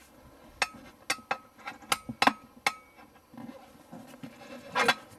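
Metal tyre lever clinking and knocking against a steel wheel rim as an off-road tyre's bead is levered over the rim lip by hand. There are about six sharp knocks in the first three seconds and a longer, rougher sound near the end.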